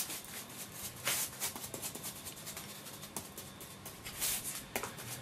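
Irregular light scratching and tapping of a paintbrush working a textured glue-and-paint mix onto a model terrain piece, with a few sharper taps about a second in and near the end.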